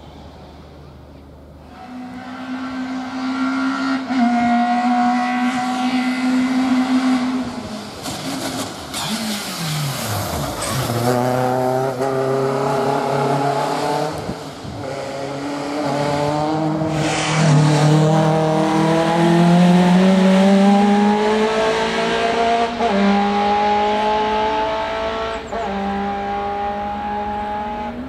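Racing car engine under hard acceleration on a hillclimb. Its note climbs in steps through the gear changes, drops sharply around ten seconds in, then climbs gear by gear again.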